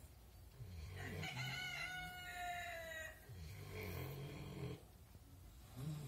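A rooster crows once, a single drawn-out crow of about two seconds. Several pigs snore in low, slow snores that recur every couple of seconds around it.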